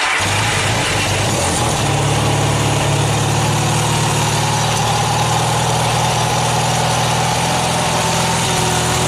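1980 Yamaha XS650 parallel-twin engine running at a steady idle on choke, started with the rectifier/regulator unplugged.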